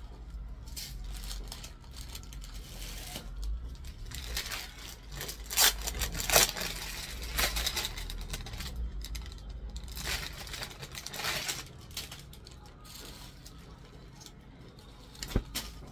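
Garments being handled and shaken out, with irregular rustling and crinkling that is loudest about six seconds in, over a low steady hum.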